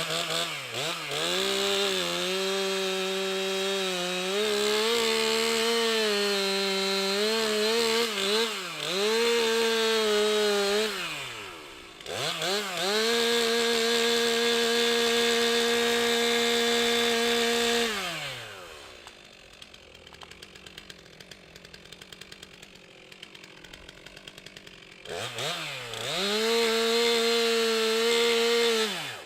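Stihl MS 362 C-M two-stroke chainsaw at full throttle in three long bursts, cutting wood, its pitch sagging and wavering under load. Between the second and third burst it drops back for several seconds to a low, pulsing idle.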